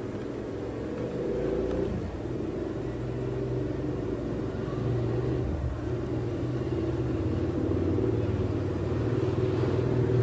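Steady low rumble that slowly grows louder.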